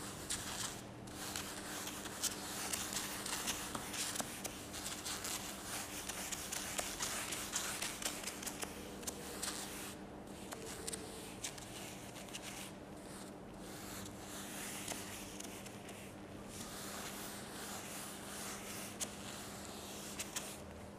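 Board eraser rubbed over a whiteboard to wipe off marker writing, in rubbing strokes that stop and start with short breaks, fainter near the end. A steady low hum runs underneath.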